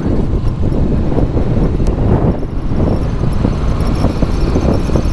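A 150cc motorbike running while being ridden, with heavy wind noise on the microphone.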